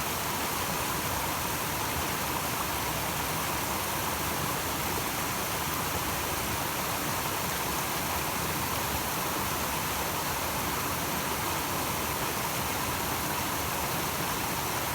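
Small mountain waterfall splashing over boulders: a steady rush of falling water that holds even throughout.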